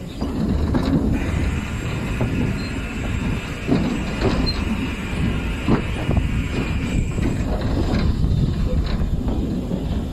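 Locomotive running along the line, heard from its footplate: a steady rumble with wind on the microphone and a few sharp clicks from the rail joints. A high, drawn-out squeal of the wheels on the rails sets in about a second in and stops about three-quarters of the way through.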